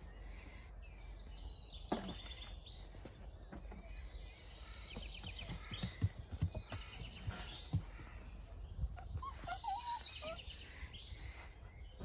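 Songbirds trilling and chirping, with a few soft thumps and scuffles from puppies playing on dirt; the loudest thump comes about six seconds in.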